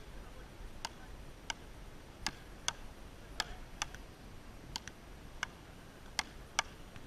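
Frescobol rally: a rubber ball clacking sharply off wooden paddles about ten times, the hits coming irregularly and some close together in pairs, over a faint low rumble.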